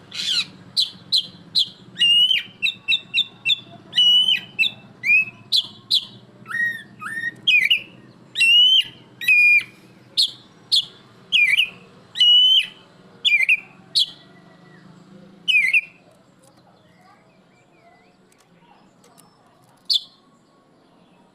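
A black-breasted Oriental magpie-robin (kacer dada hitam) singing loudly: a rapid string of sharp whistled notes, many sliding steeply up or down in pitch. The song stops about three-quarters of the way through, with one last note near the end.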